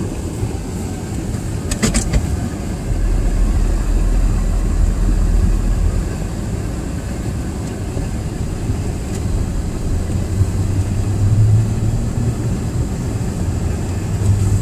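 Car driving, a steady low engine and road rumble that deepens for a few seconds and swells again near the end, with a brief cluster of clicks about two seconds in.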